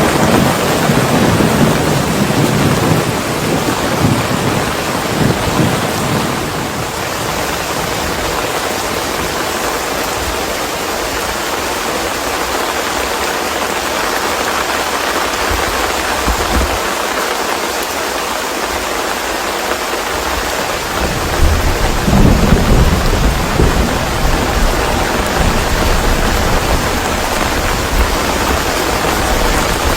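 Steady rain with low rolling thunder, which rumbles in the first few seconds, fades, and comes back about two-thirds of the way in.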